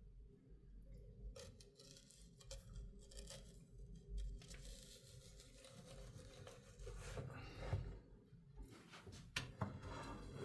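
Faint handling sounds of a raw whole chicken being pushed onto a metal rotisserie spit: irregular rustling with scattered sharp clicks and knocks, over a steady low hum.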